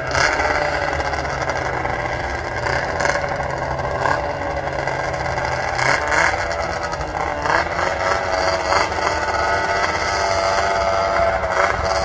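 Racing snowmobile engines running on an ice oval track, their pitch rising and falling as they accelerate and back off.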